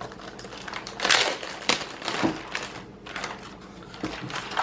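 Packaging wrap crinkling and rustling as it is pulled off a keyboard, in irregular bursts, the loudest about a second in.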